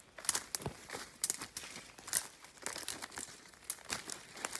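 Irregular crackling and rustling of footsteps and brushing through ferns and forest undergrowth while walking fast, several sharp crackles a second.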